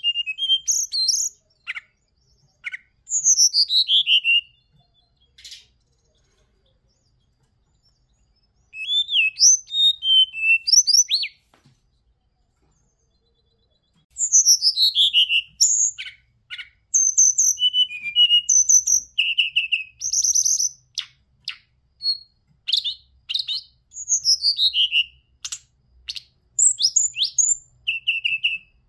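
Hill blue flycatcher (Cyornis whitei) singing: phrases of high whistles that slide steeply downward, mixed with quick clicks and short trills. The first phrases are broken by pauses of a few seconds; in the second half the song runs almost without a break.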